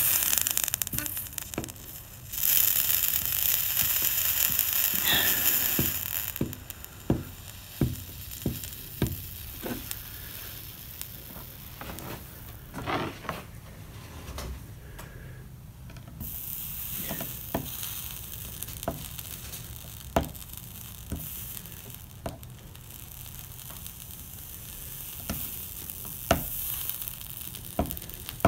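Soldering iron melting solder on a corner joint of a stained-glass panel's metal frame: the flux sizzles with a loud hiss for about the first six seconds, then fainter sizzling with scattered light clicks and taps.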